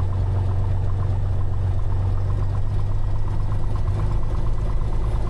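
Cessna 182's six-cylinder piston engine and propeller running steadily at low taxi power, a low, even drone heard from inside the cabin.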